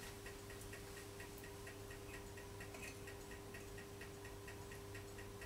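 Faint, even ticking, about four ticks a second, over a low steady hum.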